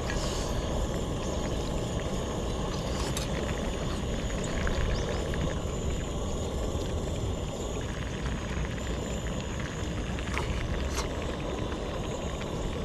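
Steady low rumbling noise, with a few faint clicks about three seconds in and again near the end.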